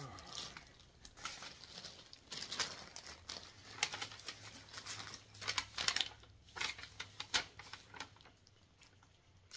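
Clear plastic wrapping crinkling and rustling in irregular handfuls as it is handled and pulled open.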